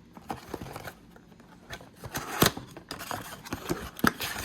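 Cardboard trading-card blaster box and its foil packs being handled and opened: scattered crinkling, scraping and light clicks, with a sharper click about two and a half seconds in and another near the end.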